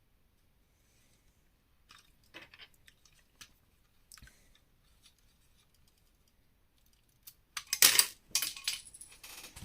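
Plastic LEGO bricks clicking and snapping as a model is pulled apart, then a loud clatter of loose pieces falling near the end.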